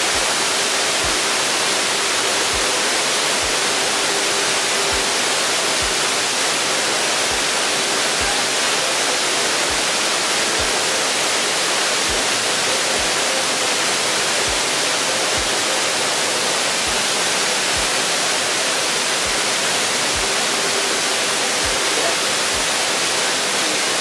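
Waterfall: a steady, loud rush of falling water, unchanging throughout.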